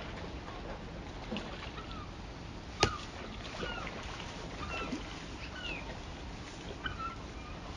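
Outdoor lakeshore ambience: a steady low rush of wind and water, with frequent short, bird-like chirps throughout. One sharp click comes about three seconds in.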